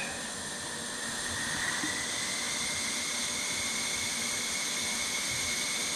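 Compressed air hissing steadily in a wastegate bench-test air line, with a faint whistle rising in pitch over the first couple of seconds as the regulator pressure is turned up toward the wastegate's cracking point.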